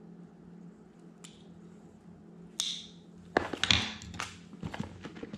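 A package being opened by hand: a sharp snap, then a run of crinkling, rustling and clicking of the packaging from about three seconds in, over a steady low hum.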